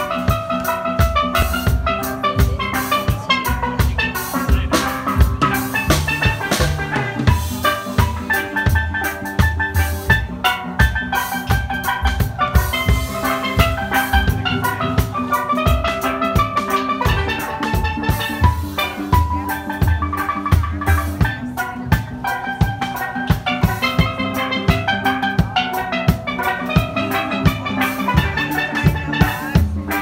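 Steel drum band playing live: steel pans carry a ringing melody and chords over a steady drum-kit beat.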